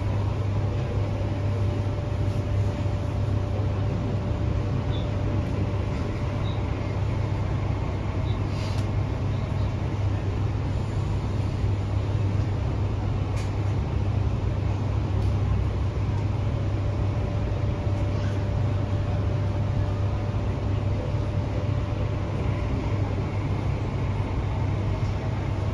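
MTR Hyundai Rotem K-Train electric multiple unit running at speed, heard inside a passenger car: a steady deep rumble with a faint steady whine that comes and goes over long stretches, and a few light clicks.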